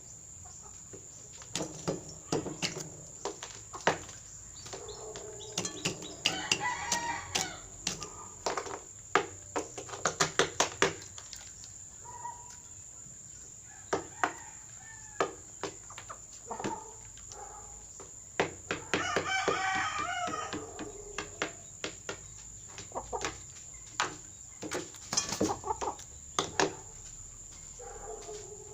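Rooster pecking at otap biscuits: many sharp taps, often in quick runs, mixed with short clucks and a longer call about two-thirds of the way through.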